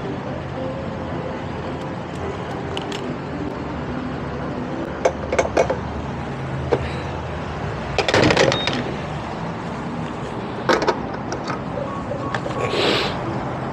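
Gas-station and street traffic ambience, a steady vehicle hum, broken by scattered clicks and knocks, with a cluster of them about 8 seconds in and a short hiss near the end.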